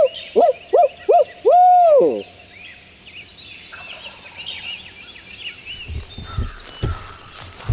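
A loud series of short, arched, hooting bird calls ending in one longer drawn-out note, followed by a dawn chorus of small songbirds chirping, with a few low thumps near the end.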